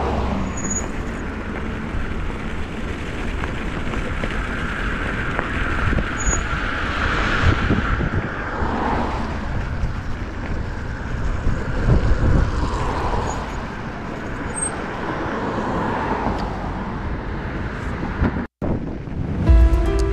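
Road traffic noise: several cars pass one after another, their tyre noise swelling and fading over a steady low rumble. The sound cuts off abruptly near the end, and music starts just after.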